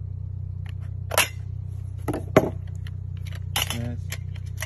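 Thin metal jar lids, just pierced by a dagger, clinking against the steel blade and each other as the blade is pulled out and the stack is handled. There are several sharp clinks, the loudest about a second in and about two and a half seconds in, over a steady low hum.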